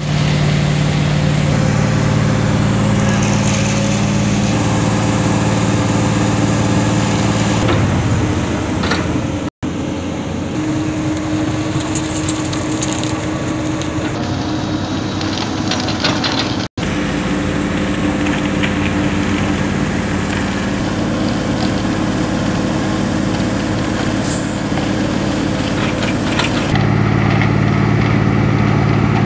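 Heavy diesel engines of a hydraulic excavator and a concrete mixer truck running steadily while materials are loaded. The engine note changes abruptly twice where the footage cuts, about ten seconds in and again past halfway.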